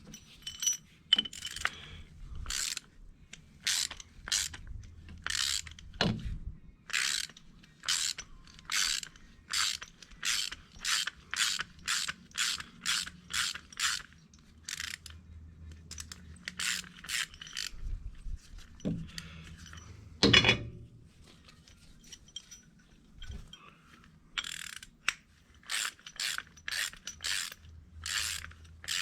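Hand ratchet being worked in runs of short ratcheting strokes, about two a second, with a pause in the middle and a single loud metallic knock about 20 seconds in.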